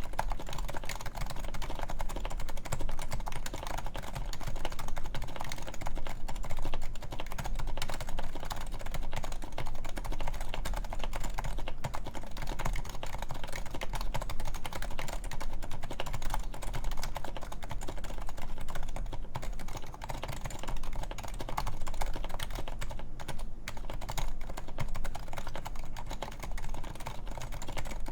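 Continuous fast typing on a Topre Realforce 104UB keyboard with 45g electrocapacitive rubber-dome switches, silenced sliders and lubed stabilizers: a steady stream of soft, rounded key presses.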